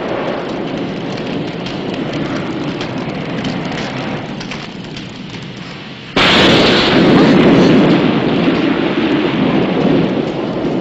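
Steady rain, then a sudden loud thunderclap about six seconds in that rumbles on and slowly fades.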